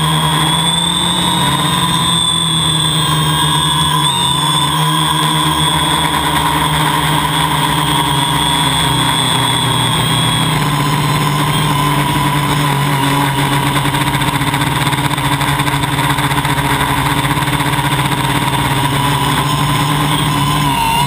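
A homebuilt drone's motors and propellers whining steadily, loud and close, as picked up by the camera it carries. The pitch wavers slightly through the flight.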